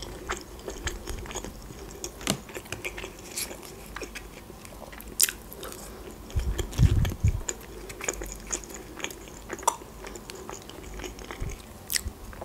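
Close-up chewing and biting of McDonald's potato wedges, with soft crunches and small wet mouth clicks. A low bump is heard about halfway through.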